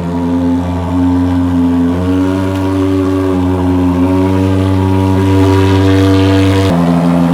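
Motto Yama fogging machine running with a loud, steady buzzing drone. Its pitch shifts slightly about two seconds in and changes abruptly near the end.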